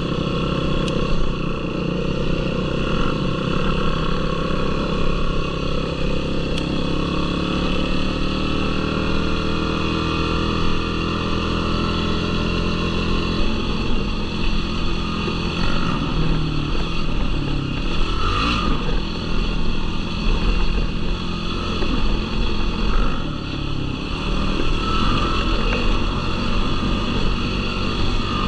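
Yamaha YFZ450R sport quad's single-cylinder four-stroke engine running while riding, its pitch rising and falling as the throttle is worked.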